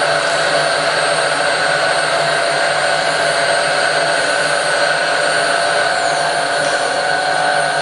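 A Bridgeport milling machine's X, Y and Z power-feed motors running together, driving the table, saddle and knee: a steady whine with several held tones. A couple of brief falling high-pitched glides come near the end.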